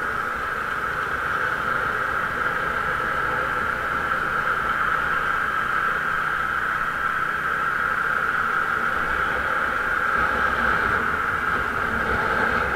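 Steady rush of wind and road noise from a moving motorbike, with its engine faintly underneath, recorded by an action camera riding along with it.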